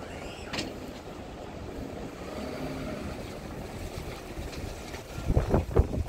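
Car engine running as the sedan creeps over muddy, stony ground, with wind buffeting the microphone and a few loud low thumps near the end.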